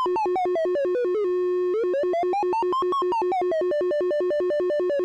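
Octave-Plateau Kitten II analogue monophonic synthesizer, its single oscillator flipped rapidly between two pitches by a square-wave LFO, giving an alarm-like warble. As the modulation depth is turned, the upper note slides up and down twice. It briefly merges into one steady tone about a second and a half in.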